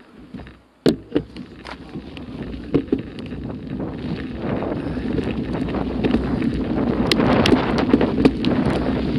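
Bicycle ridden over a loose gravel track: wind buffeting the microphone, building louder from about halfway through as speed rises, with tyres crunching and sharp knocks and rattles from stones under the wheels.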